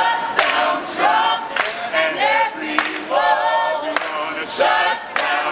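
A mixed choir of men's and women's voices singing together unaccompanied, in held phrases about a second long.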